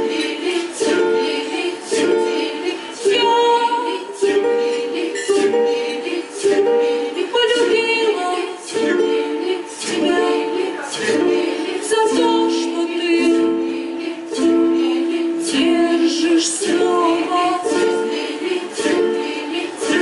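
Ukulele strummed in a steady rhythm, playing a repeating chord pattern.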